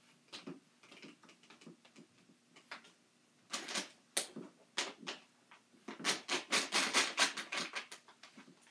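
A scatter of light clicks and taps, then a quick run of them about six seconds in, at the pace of typing.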